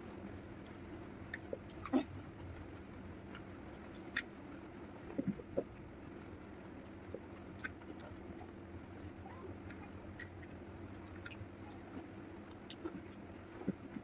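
A person eating a meal of dal and onion fritters: chewing with scattered small clicks, over a steady low hum.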